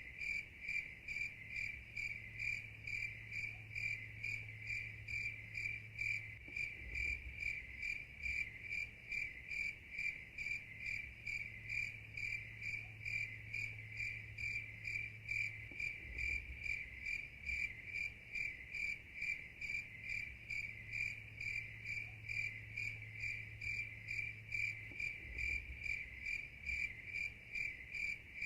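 Night insect chirping in an even, unbroken rhythm, about three chirps a second, on one high pitch.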